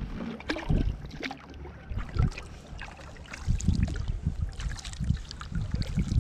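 Kayak paddle strokes in choppy water: irregular splashes and drips from the paddle blades, with gusts of wind buffeting the microphone.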